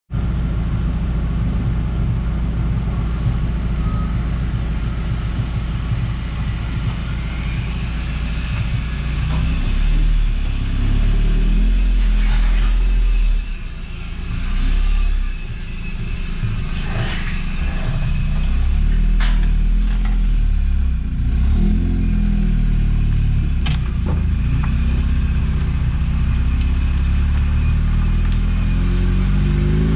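Eunos Roadster on the move: engine running and road noise, the engine pitch shifting with the driving and rising near the end. Several sharp knocks come through in the middle stretch.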